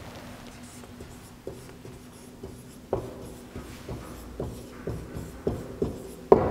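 Marker pen writing capital letters on a whiteboard: a run of short separate strokes, about two a second, with a sharper tap near the end.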